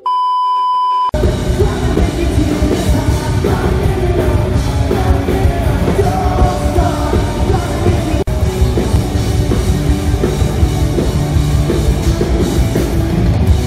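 A steady test-card beep over glitchy static for about a second, then a live pop-punk rock band playing loud: electric guitars, bass guitar and drums with a singer.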